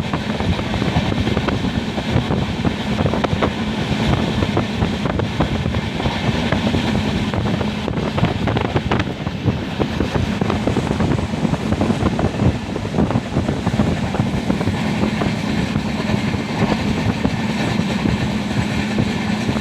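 Express passenger train running at speed, a steady rumble with rapid clicking and clattering of the wheels over the rails.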